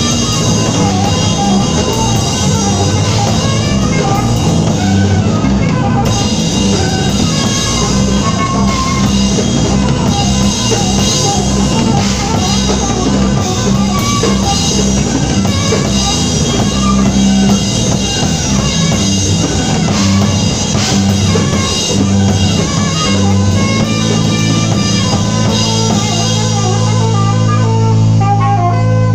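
Live jazz-rock band playing: guitar and drum kit. Near the end the playing settles into a sustained low chord.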